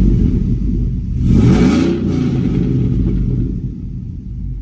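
Chevrolet Silverado 1500 engine revved with short throttle blips. The tail of one rev is falling at the start, a second rev rises and falls about a second in, and then the engine settles back toward idle.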